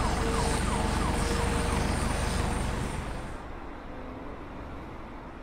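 Police siren in a fast, repeating yelp over a low rumble, fading out about three seconds in and leaving a quieter hum.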